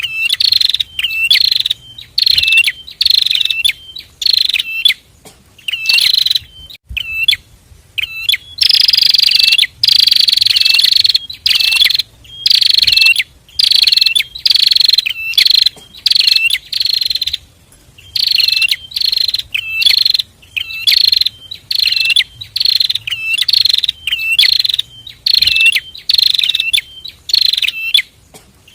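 Prinias (prenjak) calling in full voice: loud, sharp chirps repeated about two a second, with a stretch of longer, drawn-out buzzy notes about nine seconds in.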